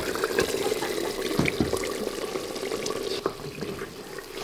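Meat curry bubbling in a stone pot, with a wooden ladle scooping through it and a few short knocks against the pot. The bubbling grows quieter about three seconds in.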